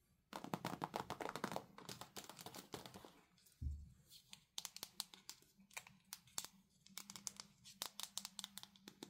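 Plastic packaging crinkling under handling fingers, dense for the first couple of seconds, then a soft thump about three and a half seconds in. After that come sparser crinkles and sharp clicks of a hard plastic candy toy being turned in the hands.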